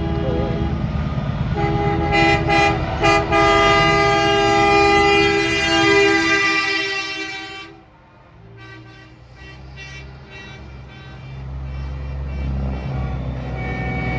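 Semi truck's air horn blowing a long multi-tone chord, with a short break about a second in and quick stutters around two and three seconds in, cutting off about eight seconds in as the truck passes. After it, heavy diesel truck engines run with a low steady tone that grows louder toward the end.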